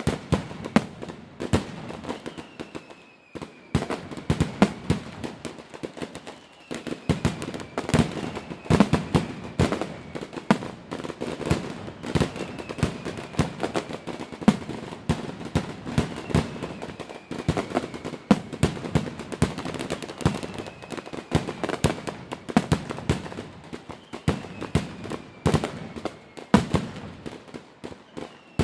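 Many fireworks going off in a dense barrage of bangs and pops, with a faint falling whistle coming back every two to three seconds.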